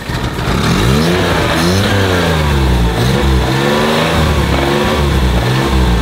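Car engine just started and being revved over and over, its pitch climbing and dropping about once a second.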